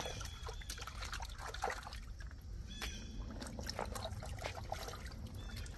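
Hands digging through gravel and mud under shallow water: water sloshing and trickling, with many short sharp clicks and knocks throughout.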